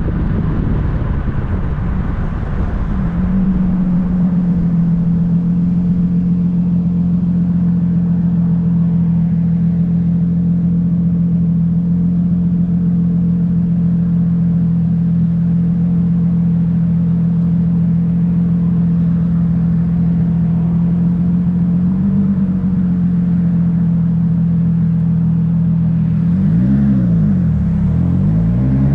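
Turbocharged Nissan RB25 inline-six in a 240SX running at steady revs while driving. Near the end the revs drop and climb back, then rise as the car accelerates.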